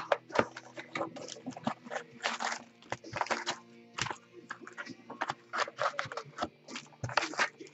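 Trading-card box and packs being torn open and handled: quick rips, crinkles and rustles of wrapper and cardboard, a few a second, over faint background music.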